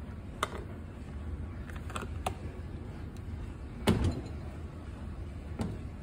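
Samsung dishwasher handled with its door open: several sharp clicks and knocks, the loudest a thump about four seconds in, over a low steady hum.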